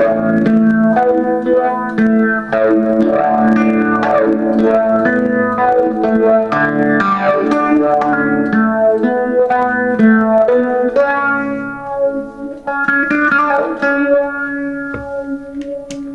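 Electric guitar played through a Small Stone-style phaser clone and a Fuzz Face-style fuzz clone, giving a thick, distorted, funky riff of changing notes and chords. The playing drops back to quieter notes about twelve seconds in and again near the end.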